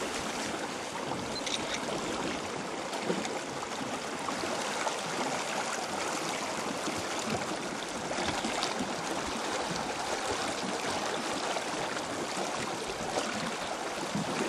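Fast-flowing river water rushing and lapping close by, a steady wash of noise.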